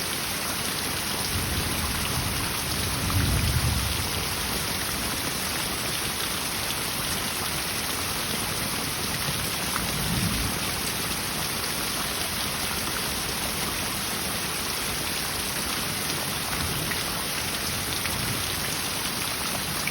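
Steady heavy rain with low rumbles of thunder, the strongest about three seconds in and another around ten seconds.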